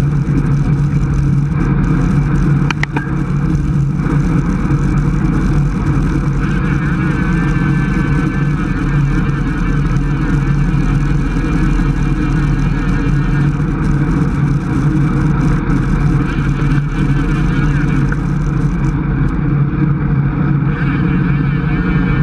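Steady wind rush over a handlebar-mounted camera's microphone on a road bike moving at about 24 mph, with tyre and road noise underneath. There is one brief click about three seconds in.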